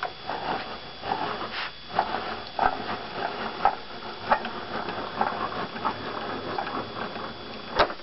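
AccuQuilt GO fabric cutter being hand-cranked, its rollers pressing a strip die and cutting mat through to cut layered sewn fabric strips: irregular clicking and knocking from the crank and rollers, with one sharp click near the end.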